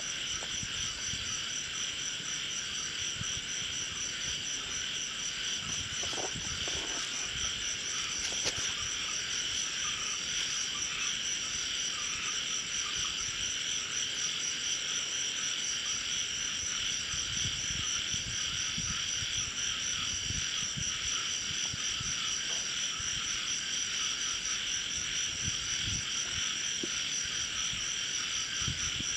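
Night chorus of insects and frogs: a steady high shrill with a short call repeating at regular intervals over it, and faint low knocks now and then.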